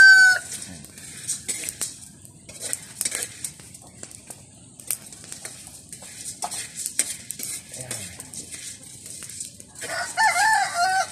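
A rooster crowing: the end of one crow right at the start, the loudest sound here, then a full crow of about a second near the end. Between the crows, scattered light clicks and knocks.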